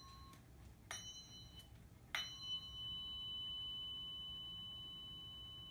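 Tuning fork struck: a short tap with a brief ring about a second in, then a sharper strike about two seconds in, after which the fork rings with a clear steady tone that slowly fades.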